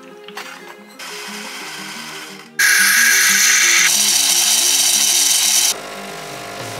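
Philips bean-to-cup espresso machine frothing milk into a cup: a loud steady hiss starts about two and a half seconds in and cuts off sharply about a second before the end, giving way to a lower hum as the coffee runs. Background music plays throughout.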